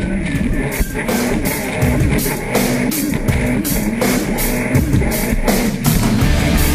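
Rock music with a drum kit and guitar. A short whistled tune fades out in the first second, then regular drum hits carry on.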